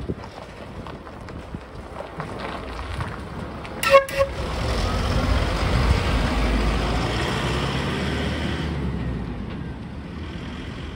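Two short horn toots about four seconds in, then a small decorated truck drives close past and away, its engine and tyre noise swelling and fading.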